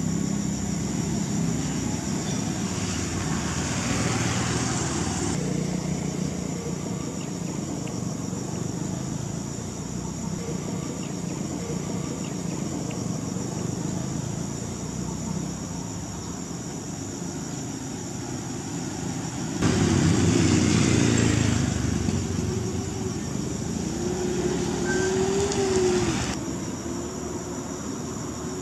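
Motor vehicles passing on the road, loudest from about twenty seconds in, with a wavering engine note near the end of that pass, over a steady high chirring of insects.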